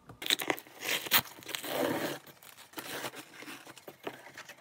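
A cardboard parcel being unpacked: packing tape tearing and cardboard and bubble wrap rustling and crinkling, in a quick run of crackles and scrapes.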